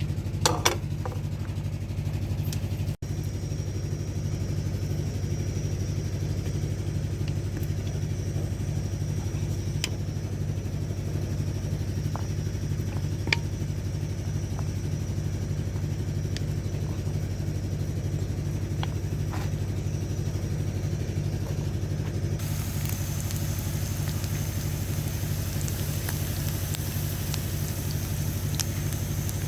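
An engine idling steadily with an even low pulse, with a few light clicks on top.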